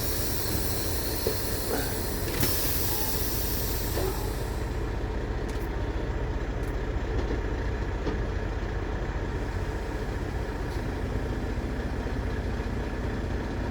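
Truck running, heard from inside the cab: a steady low rumble of engine and road noise, with a higher hiss during the first few seconds.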